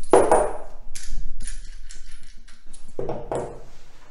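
Brass hose fittings clinking and knocking as they are handled and set down on a table: a metallic knock with a short ring near the start, another about a second in, and a third about three seconds in.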